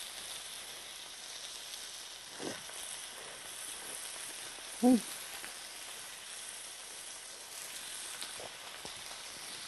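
Slices of fatty yakiniku meat sizzling steadily as they grill in their own fat, with a few faint ticks.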